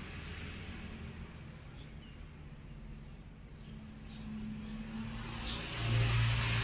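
A motor or engine running with a low, steady hum that grows louder in the second half.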